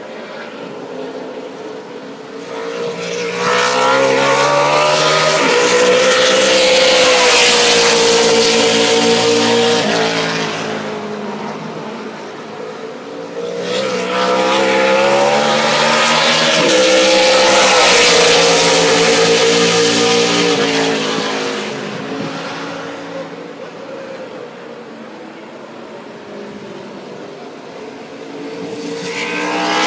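NASCAR Camping World Truck Series race trucks' V8 engines passing at full throttle, one after another, as they power out of a corner. Each engine note rises in pitch as the truck accelerates, swells as it goes by and fades away. Two trucks pass, and a third is approaching near the end.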